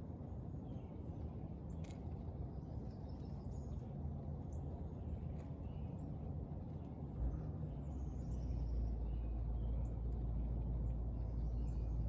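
Outdoor backyard ambience: a steady low rumble that grows louder about seven seconds in, with faint, scattered songbird chirps and a few light clicks.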